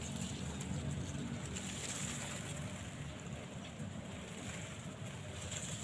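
Wind blowing over the microphone in an open field, a steady low rumble.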